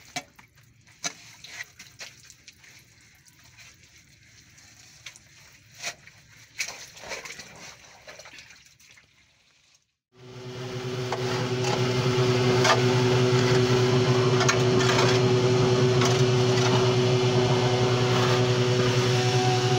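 Scattered scrapes and knocks of a metal sheet working wet sludge in a manhole. After a brief dropout about halfway through, an engine starts running steadily with a constant hum and stays level.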